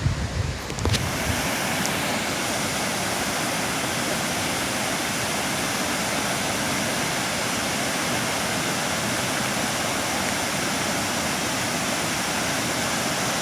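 Waterfall rushing: a steady, even sound of falling water that sets in about a second in, after a brief patch of uneven low rumble like wind on the microphone.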